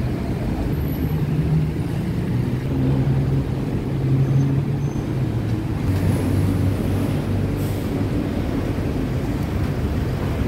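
Street traffic: engines of passing vehicles running, a low hum that changes pitch as different vehicles go by.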